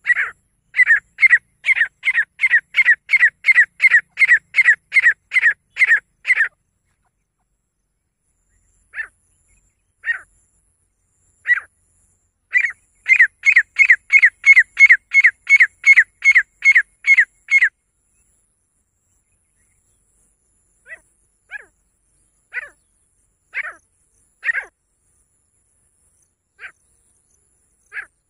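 Female grey francolin calling: fast runs of sharp, repeated notes, about three a second, one run of some six seconds and a second of some five, with scattered single notes between and after.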